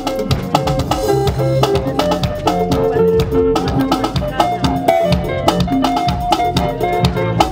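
Music with drums and a steady beat.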